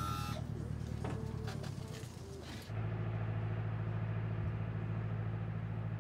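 Engine of an orchard harvesting platform running steadily with a low hum. About three seconds in the sound cuts to a closer, steadier take of the same drone with the high end gone.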